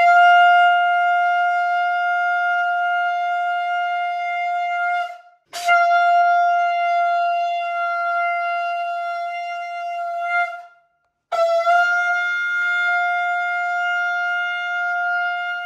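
Conch shell (shankh) blown in three long, steady blasts of about five seconds each, with short breaks between them. The third blast runs on past the end.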